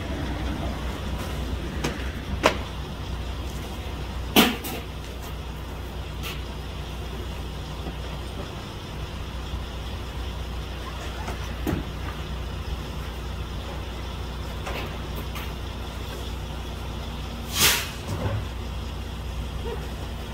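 Cardboard boxes of small appliances being handled at a trailer's rear: three sharp knocks of boxes set down or bumped, the loudest near the end, over a steady low vehicle rumble.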